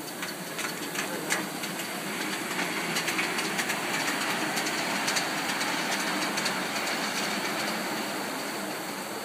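Polly 6 coal-fired live-steam model locomotive moving off along the track: a steady hiss of steam, with sharp clicks from the wheels and track in the first second or so. It grows louder midway, then eases off near the end as it draws away.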